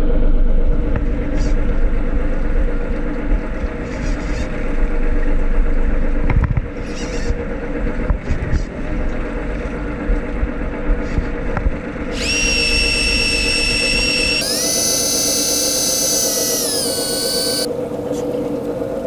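A Daiwa Seaborg 200JL-DH electric fishing reel's motor winding in line. A steady high whine starts about twelve seconds in, steps to a louder, slightly lower whine, then drops in pitch and stops near the end as the reel finishes retrieving. A steady low hum runs underneath.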